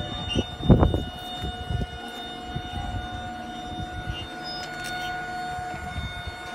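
A machine running with a steady whine of several held tones over a low rumble. A single thump comes about a second in.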